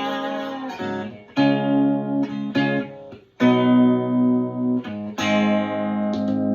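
Open-chamber Telecaster electric guitar played with a slide: arpeggiated notes and chords in the key of G, about eight attacks, each left to ring, with the pitch sliding in the first second.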